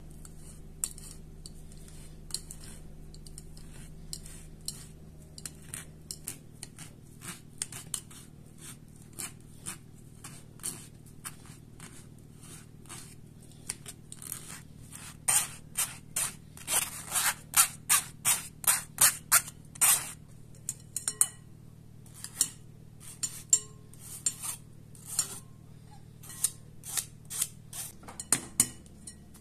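A metal spoon scraping and knocking against a fine wire-mesh strainer as boiled potatoes are pressed through it into a glass bowl: a long run of short, sharp scrapes, coming thicker and louder about halfway through.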